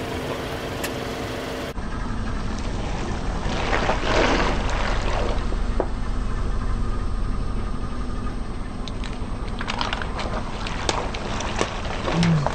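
Car engine running as the car creeps forward on asphalt, then its tyre rolls over rubber gloves filled with water beads. About the last few seconds hold a run of sharp pops and squelches as the gloves burst and the beads squash and scatter.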